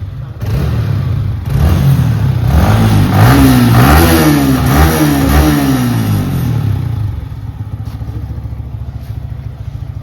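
Yamaha R15 V3's 155 cc single-cylinder engine idling through its single stock silencer, then revved in several quick rising-and-falling blips of the throttle, then settling back to a steady idle.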